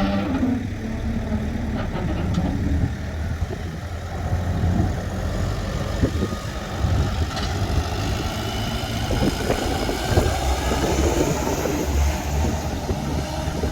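A road roller's engine running steadily as the machine is offloaded, a heavy low engine sound that keeps an even level throughout.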